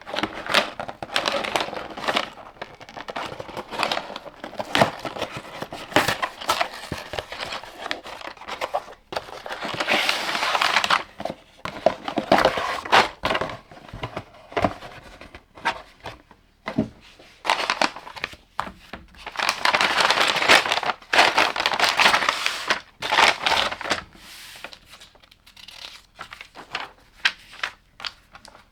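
Packaging of a LEGO set being handled and opened: plastic crinkling and tearing, with longer stretches of continuous crinkling about ten and twenty seconds in, and sharp clicks in between.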